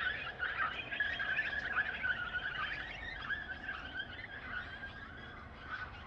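A flock of birds chattering and twittering all at once, a dense, continuous mass of overlapping high chirps that eases off slightly toward the end.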